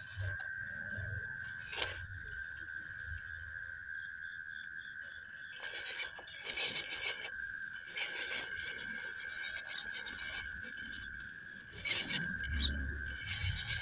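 MN99S RC crawler scraping and grinding over rough wooden timbers in several short spells, the loudest near the end with a low thump. A steady high insect drone runs underneath.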